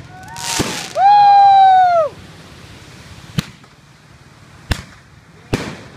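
Fireworks going off: a rising whoosh, then a loud whistle held for about a second, followed by three sharp bangs spread over the next few seconds.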